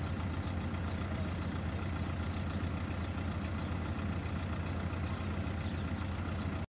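Engine idling steadily with a constant low hum.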